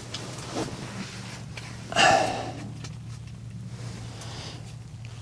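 A person's loud, short breath or sigh about two seconds in, over a steady low hum.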